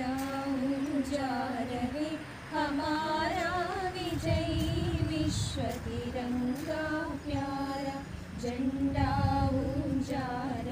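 A woman's voice singing a slow melody in long held, wavering notes, with a few low rumbles in the background around the middle and near the end.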